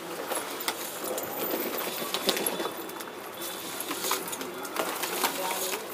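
A flock of pigeons pecking at feed on a concrete floor: rapid, irregular clicking and tapping of many beaks.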